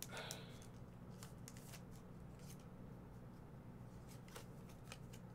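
Faint handling of a stack of Pokémon trading cards in the hands: the cards slide and shuffle against each other, giving a scatter of soft clicks and rustles.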